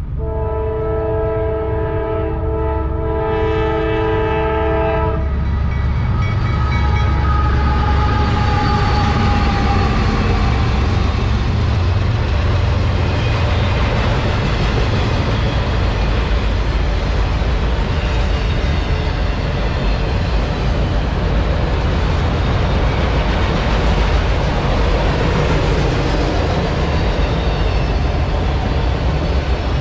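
CSX freight locomotive horn sounding one long chord for about five seconds, then the loud steady rumble and wheel noise of a loaded autorack freight train rolling past.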